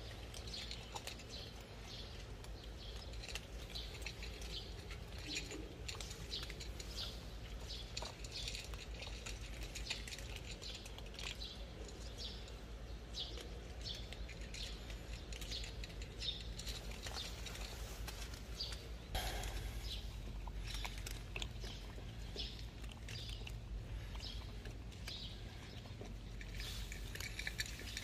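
Cats crunching dry kibble and eating from small bowls: a run of quick, irregular crisp crunches and clicks over a low outdoor rumble.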